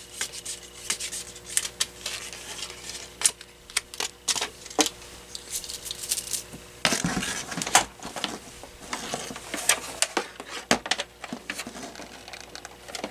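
Handling noise of plastic power adapters and their cords: irregular clicks, knocks and rattles, with a longer stretch of rubbing and scraping about seven seconds in, as a 9-volt DC adapter's plug is tried in the phone base's power jack.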